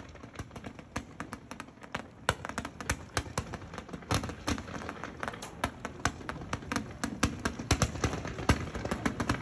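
Multi-shot consumer fireworks cake firing: a fast, irregular run of sharp pops and bangs, several a second, getting louder toward the end.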